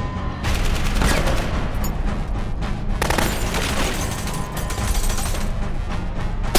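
Rapid gunfire, many shots in quick succession, over music with a steady low bass.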